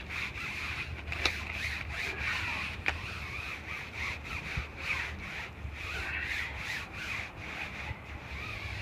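A water-fed brush scrubbing a bug screen in repeated strokes, bristles rubbing across the mesh while purified water flows through it and rinses the screen.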